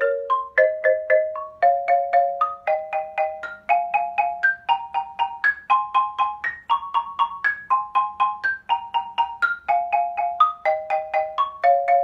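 Xylophone played with two mallets in a scale exercise: each pair of notes is struck a few times in quick succession, about four strokes a second. The notes climb step by step for the first half and then come back down.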